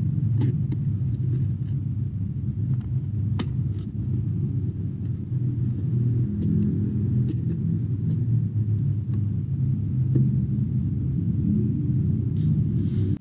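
Steady low background rumble, with a few faint light clicks.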